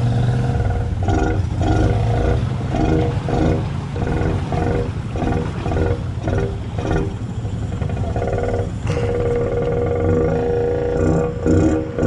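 ATV engine revving in repeated pulses over a steady low rumble, the throttle rising and dropping about twice a second at times, with a couple of seconds of steadier running about two-thirds through.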